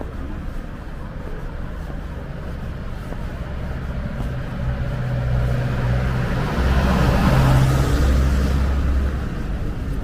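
A motor vehicle drives past close by over a steady street traffic rumble, its engine hum and tyre noise swelling about halfway through, loudest near the end, then fading.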